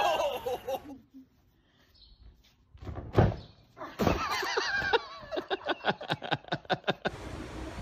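Screaming voices trail off in the first second; after a short quiet comes a single loud thud, then excited voices crying out in quick, repeated bursts.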